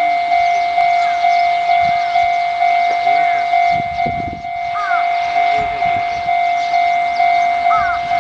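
Japanese level-crossing warning alarm ringing steadily at about two strikes a second, signalling an approaching train.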